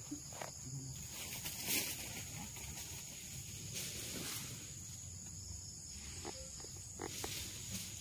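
A steady high-pitched insect drone, with low croaking calls of white herons (egrets) at their roost.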